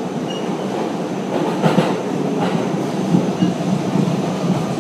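New York City subway car riding, heard from inside: a steady rumble with a few clanks around the middle.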